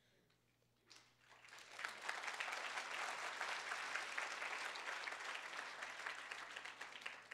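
Audience applauding, starting about a second in, building quickly, then fading out near the end.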